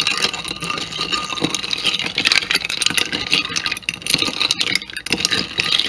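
A metal spoon stirring iced coffee in a clear cup: ice cubes clink and rattle against the spoon and the cup walls in quick, continuous knocks.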